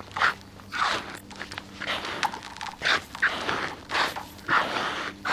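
Footsteps of a person walking across frozen ground, one step about every second.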